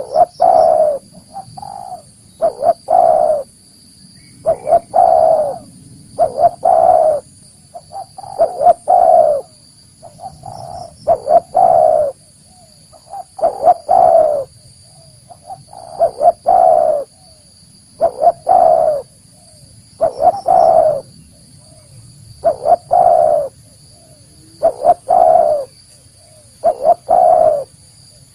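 A spotted dove (tekukur) cooing its call over and over, about one phrase every two seconds: each phrase is a couple of short notes and then a longer, lower coo.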